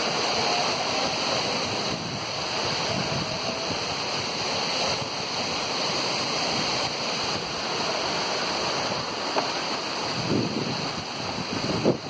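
Steady rushing of a tall waterfall pouring down a rock face onto boulders.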